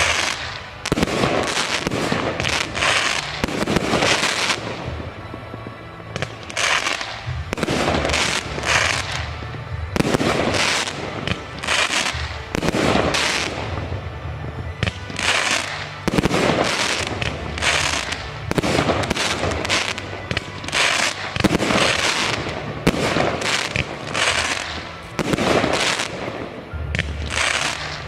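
Aerial fireworks display: shells and firecracker-like effects bursting and crackling in quick, near-continuous succession, with a few louder bangs standing out.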